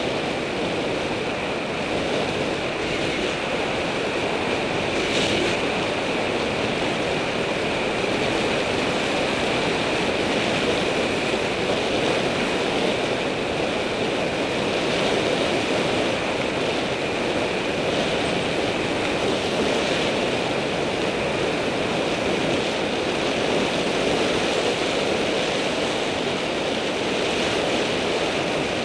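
Steady rush of wind over a bike-mounted camera's microphone on a fast downhill ride, mixed with the bicycle tyres rolling on asphalt.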